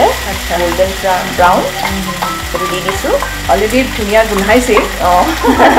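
Chicken pieces and onions sizzling in hot oil in a pan while a wooden spatula stirs them, scraping and squeaking against the pan bottom to lift the browned bits stuck there.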